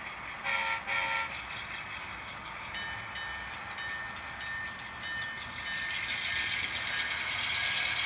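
Sound system of a model diesel locomotive: two short horn toots about half a second in, then a run of repeated short high ringing tones. From about halfway through, a steady running-train noise builds and holds.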